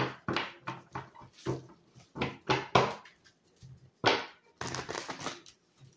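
Tarot cards being shuffled by hand: an uneven run of quick papery snaps and slaps, several a second, with short pauses.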